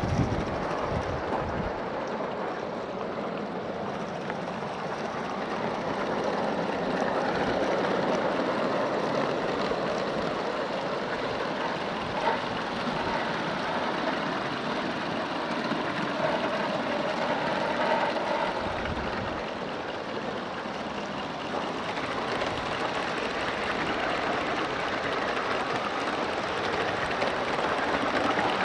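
Accucraft live-steam model of a Pennsylvania T1 locomotive running on garden track: a steady hiss of steam with the rolling of wheels on the rails, growing a little louder and softer as it passes.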